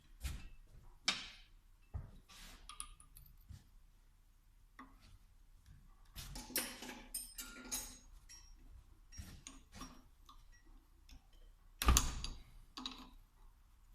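Scattered clicks, clinks and knocks of hand tools and small metal parts being handled while a VE diesel injection pump is taken apart, with a busier stretch in the middle and one louder knock near the end.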